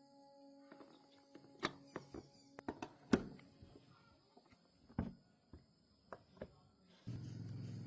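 Scattered light clicks and knocks of tools and parts being handled in a chainsaw repair, the loudest about three seconds in. Near the end a steady low hum starts abruptly.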